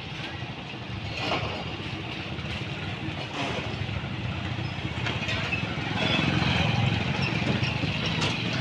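Street traffic: a motor vehicle's engine running close by over general roadside noise, getting louder about six seconds in.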